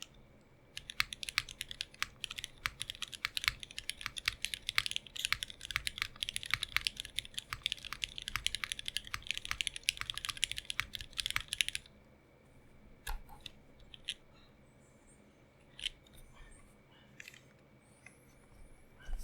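Mechanical keyboard with lubed and filmed retooled Cherry MX Black linear switches, GMK ABS keycaps and an aluminium plate, typed on rapidly and steadily for about eleven seconds. Typing then stops, and a few isolated single clicks and taps follow, a second or two apart.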